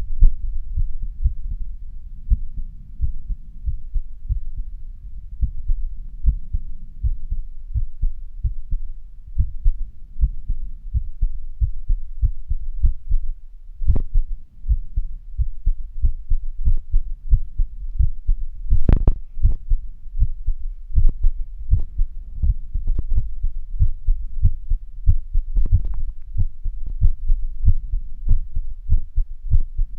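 Human heartbeat recorded from the body: a steady run of low, dull thumps. A few sharper clicks cut in, at about 14, 19 and 26 seconds in, the one near 19 seconds the loudest.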